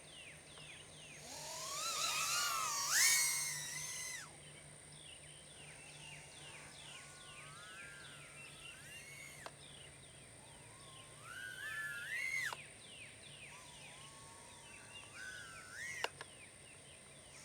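BetaFPV Air65II tiny whoop's brushless motors whining in four throttle punches, each rising in pitch and cutting off sharply. The first, a few seconds in, is the loudest.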